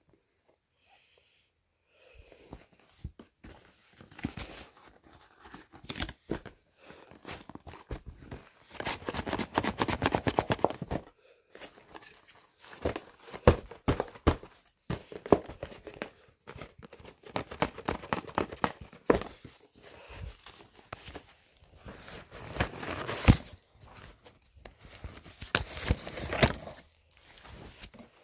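Cardboard box and its packaging being handled as a hinged knee brace is pulled out: irregular rustling and crinkling with sharp clicks and scrapes. A longer stretch of scraping about nine to eleven seconds in.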